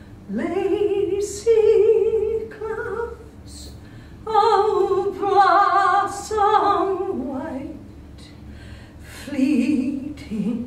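A woman singing solo and unaccompanied: long held notes with vibrato, in phrases of one to three seconds separated by short breaths.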